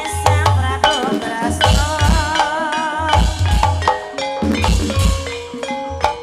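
Banyumasan gamelan music: struck metallophone notes over a steady kendang drum pattern, with a wavering held melody line for a couple of seconds near the start.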